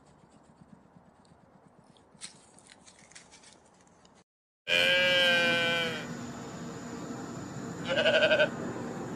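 Sheep bleating: one long call a little before halfway through that falls slightly at its end, then a shorter quavering bleat near the end. Before the first call there are a few seconds of faint scattered clicks.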